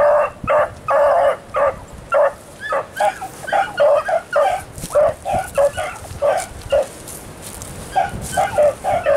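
Rabbit-hunting beagles baying on a cottontail's track: short, high cries repeating about twice a second, with a brief lull about seven seconds in.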